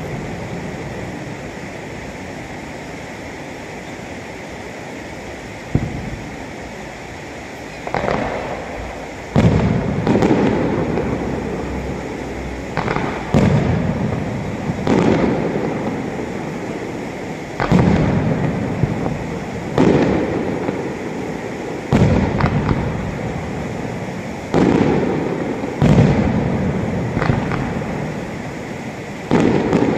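Aerial fireworks shells bursting: a single sharp bang about six seconds in, then from about eight seconds a regular run of booms roughly every two seconds, each fading away in a long rumbling echo.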